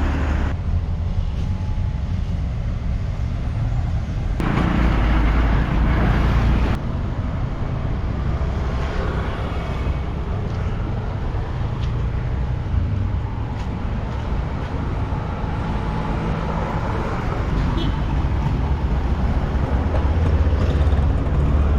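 An engine running steadily close by, a low hum with a louder, rougher stretch a few seconds in, over faint voices.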